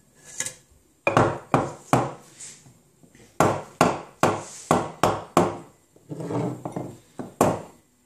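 Stainless steel milk frothing pitcher knocked down repeatedly on a wooden worktop, about a dozen sharp knocks in quick groups, the usual way of popping large bubbles in frothed milk. A brief rushing, swishing sound comes between the last groups.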